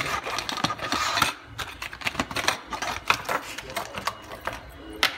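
Clear plastic blister packaging being handled and pressed open by hand, crackling with many rapid clicks and snaps that thin out near the end.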